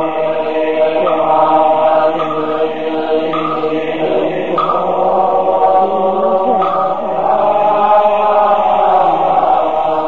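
A group of voices chanting together in long held notes, the pitch shifting every second or two.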